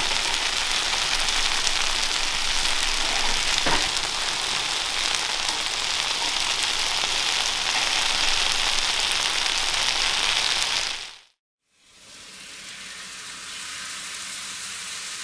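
Pork kimchi stir-fry sizzling steadily on foil on a hot steel teppan griddle, with a single click a few seconds in. The sizzling cuts off suddenly about three-quarters of the way through, and a quieter hiss then fades in.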